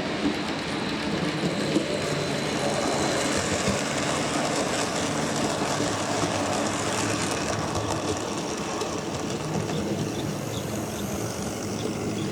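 OO gauge model locomotive running along layout track, giving a steady mechanical whirr and rattle.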